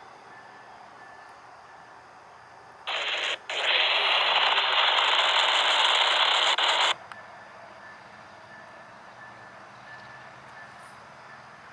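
Scanner radio keying up with no voice: a short burst of static, then about three seconds of loud, even hiss that cuts off suddenly.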